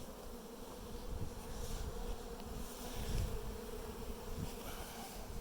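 Honeybees in an opened hive buzzing, a steady hum, with a low rumble underneath.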